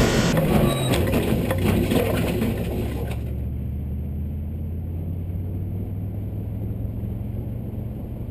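Audi car's engine heard from inside the cabin at track speed, its note dropping in the first second and then holding a steady low drone. Road and wind noise with rapid rattling fills the first three seconds, then the hiss cuts away abruptly about three seconds in.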